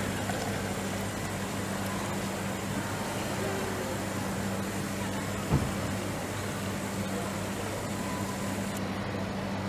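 Touchscreen self-service soda fountain pouring cola into a paper cup: a steady hiss of the stream and fizz over a steady hum from the dispenser. The pour cuts off near the end. There is a short knock about halfway through.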